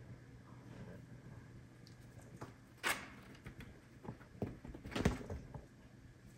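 A sharp knock about three seconds in, then several soft bumps and rustles as a small kitten clambers over a cardboard scratcher beside a pet bed.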